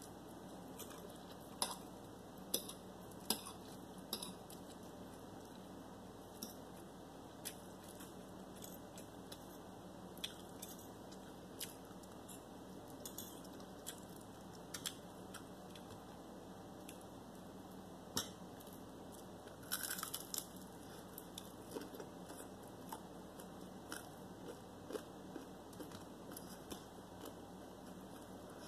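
Someone eating pancit canton noodles and fried chicken: chewing and biting close to the microphone, with sharp clicks of a fork against a ceramic plate. The loudest clicks come as four in a row in the first few seconds and as a cluster about two-thirds of the way through.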